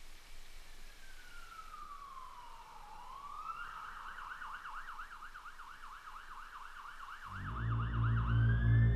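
Police car siren: a slow wail falling and then rising, then a fast yelp warbling about five times a second, swinging back into a rising wail near the end. Low, pulsing music comes in about seven seconds in and grows louder than the siren.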